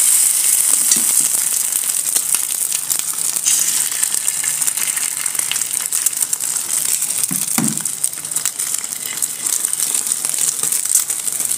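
Hot oil sizzling and crackling in a frying pan as a slice of bread fries in it, loudest just as the bread goes in.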